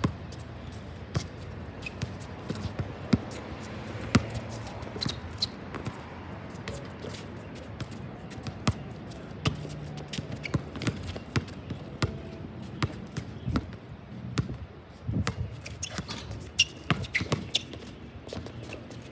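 A basketball dribbled on an outdoor hard court, sharp irregular bounces throughout, mixed with players' running footsteps.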